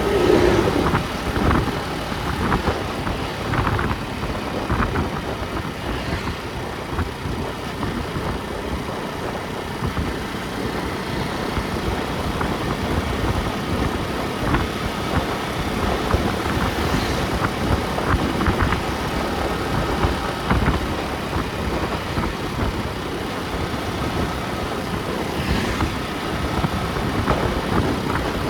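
A car driving steadily, with a constant rumble of engine and road noise.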